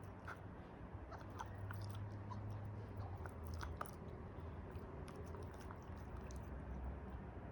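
A dog chewing and gnawing on a rubber KONG toy, with irregular small clicks and crunches.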